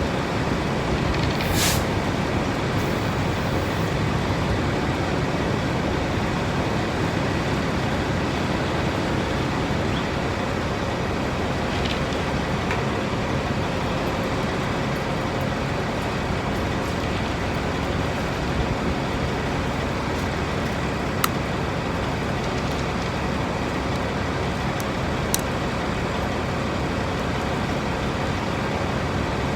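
Steady rumble of road vehicles and traffic with a faint engine hum. There is a short hiss about a second and a half in and a few faint clicks later.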